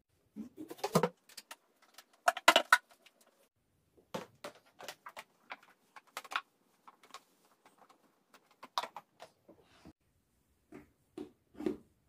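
Plastic clicks, knocks and rubbing from a Professor mini twin-tub washing machine being handled: a hand in its spin basket, then its power cord wound around the back. The knocks come irregularly, loudest about one second and two and a half seconds in.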